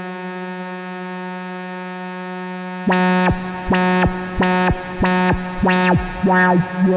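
Musonics Vanilla 5U modular analog synthesizer: a steady buzzy drone note, then from about three seconds in a run of six repeated notes at the same pitch, each one swelling bright and closing down again. The last two notes open less and sound duller.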